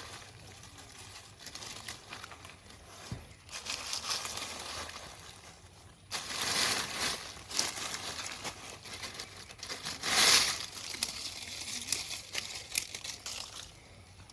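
Rustling and crackling in several irregular bursts with a few sharp clicks, the loudest burst about ten seconds in.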